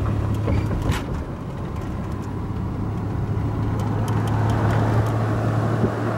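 Inside a moving vehicle's cabin: steady engine drone with road and wind noise, and a couple of brief clicks in the first second.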